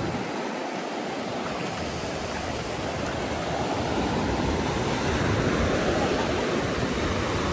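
Small ocean waves breaking and washing up over the sand in the shallows, a steady surf hiss that swells a little louder about halfway through.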